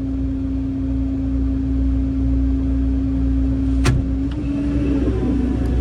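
Heavy equipment diesel engine running steadily with a low rumble and a held drone, with a sharp click about four seconds in.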